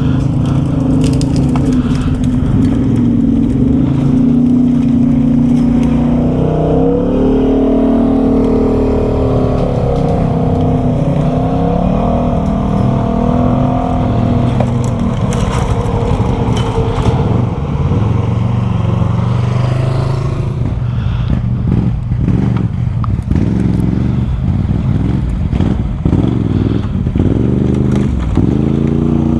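ATV engine running through a tight wooded trail, its pitch rising and falling with the throttle, with branches scraping and brushing against the machine. In the second half the engine runs lower and steadier, and short knocks and snaps come often.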